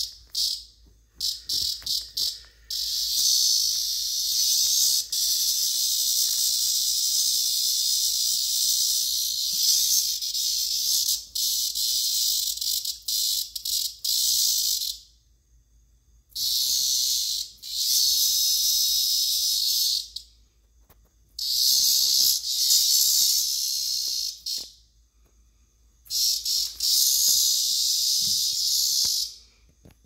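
A captured cicada making its loud buzzing racket, the alarm call of a seized cicada, in long bursts of several seconds. There are a few short stuttering bursts near the start and gaps of a second or two between the bursts.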